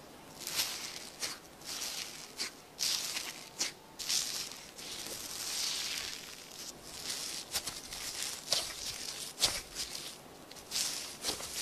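Slime being squeezed and poked by hand: irregular crackling and squishing, with many short sharp clicks and pops.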